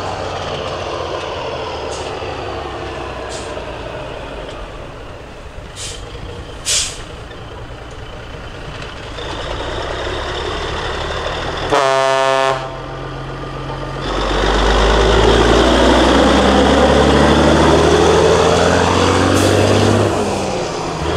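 American cab-over semi truck's diesel running through open straight-pipe exhaust stacks, with two short air hisses near the middle. About halfway through, the truck's air horn gives one loud blast of under a second. The engine then pulls away under load, much louder, its pitch rising and falling through the gear changes.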